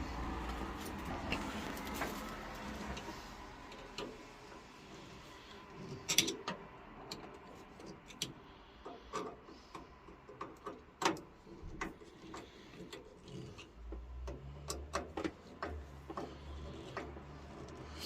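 Tools and small metal boiler parts being handled and fitted back together: scattered clicks and taps, the loudest about six and eleven seconds in, over a low hum that fades after the first few seconds and returns near the end.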